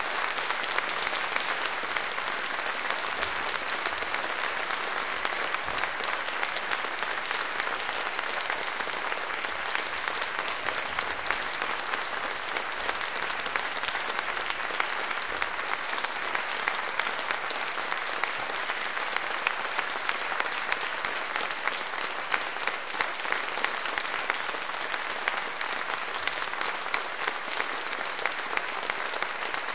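Theatre audience applauding steadily, a dense, even clatter of many hands clapping.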